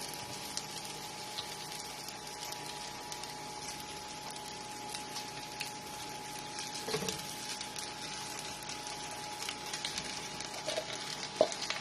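Fried rice with luncheon meat and egg cooking in an oiled pan: a faint, even sizzle full of small crackles, with a steady thin hum underneath.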